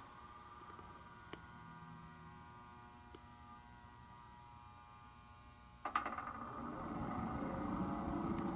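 An electric space heater's blower fan switching on about six seconds in with a click, then spinning up, its rushing whir growing louder; before that only a faint steady hum.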